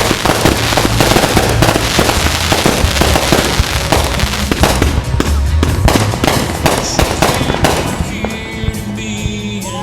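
Fireworks going off in a dense barrage: rapid overlapping bangs and crackling that thin out near the end, with music playing underneath.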